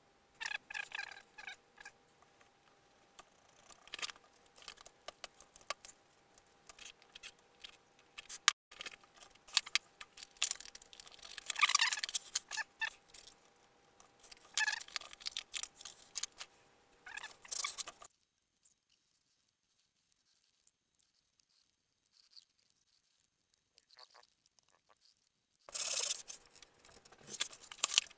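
Scattered rustling, scraping and tapping as hatch cover pieces are handled and pressed into the bays of a foam model-aircraft fuselage. The noise stops for several seconds about two-thirds of the way through, then picks up again briefly near the end.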